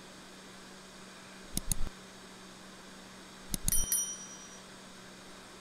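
Sound effects of an on-screen subscribe animation. A quick double mouse click comes about one and a half seconds in. At about three and a half seconds another click is followed by a short, bright notification-bell ding, all over a steady low electrical hum.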